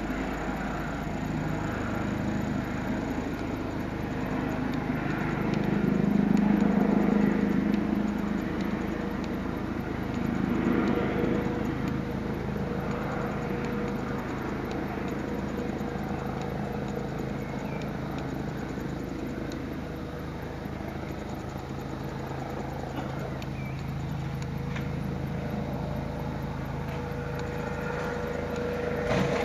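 Eurocopter EC135 helicopter flying overhead, a steady rotor and engine drone that swells about six seconds in and again around ten seconds.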